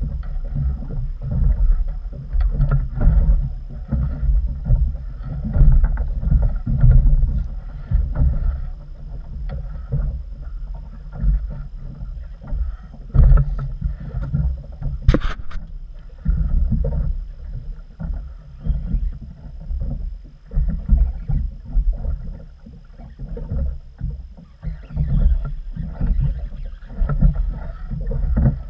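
Gusty low rumble of wind on the microphone and water slapping against the hull of an inflatable boat on a choppy sea. A single sharp click comes about halfway through.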